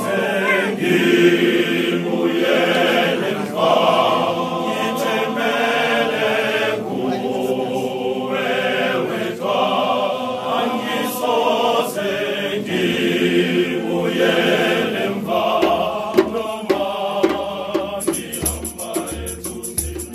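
A choir singing a hymn in harmony in a Nguni language. Near the end a shaker joins in with a quick, even rattle.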